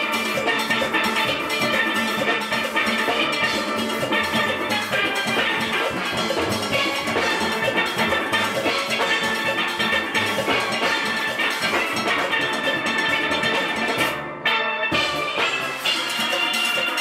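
A steel orchestra playing live: many steel pans struck with mallets in a fast, busy melody, backed by bass pans and a drum kit. The sound dulls briefly about three-quarters of the way through.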